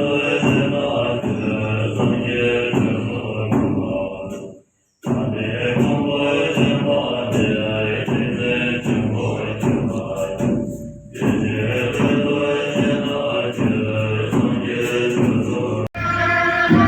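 Buddhist monks chanting together during a puja, in short clips joined by abrupt cuts with a brief silence between them. About a second before the end it switches suddenly to instrumental music.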